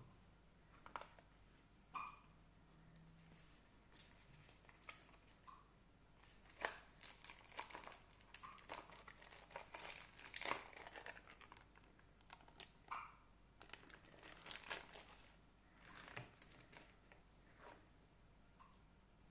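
Quiet crinkling and rustling of packaging handled by hand as a plush toy is unpacked, in scattered irregular bursts that are busiest in the middle of the stretch.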